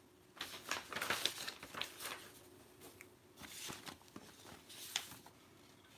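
Sheets of printer paper rustling and crinkling as they are handled, in irregular rustles, busiest in the first two seconds, with a sharper crinkle about five seconds in.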